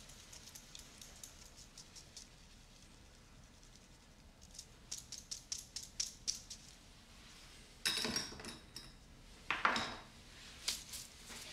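Fine metal mesh sieve shaken and tapped over a metal mixing bowl while sifting dry ingredients: light rapid ticks, then a run of sharper clicks, and a couple of louder knocks of metal and glass kitchenware about two-thirds of the way in.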